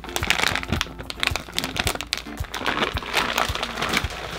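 Dense, irregular crinkling and crackling of snack packaging being handled, over background music.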